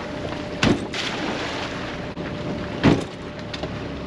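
Two hard knocks about two seconds apart, the second the louder, with a few light clicks after, as a crab pot is handled against the hull of a small boat. Steady wind and water noise runs underneath.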